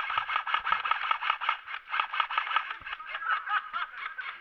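Airsoft electric rifles firing on full auto: a rapid, steady string of shots at about ten a second, in long bursts.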